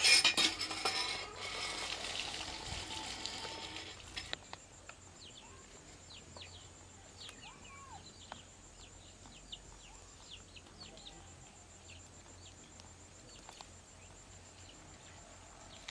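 A loud rushing noise for about the first four seconds, then birds chirping in many short calls, with a faint steady high trill underneath.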